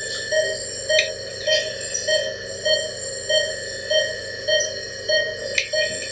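ICU bedside monitoring equipment beeping in a fast, even rhythm, about two and a half beeps a second, over a steady high whine. Two brief clicks, about a second in and near the end.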